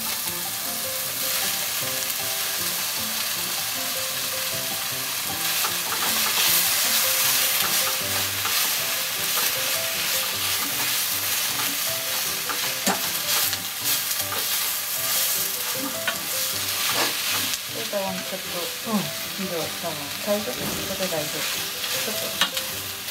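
Beef frying in olive oil in a deep pot, sizzling steadily, with a utensil clicking against the pot now and then as the meat is stirred: the beef being browned.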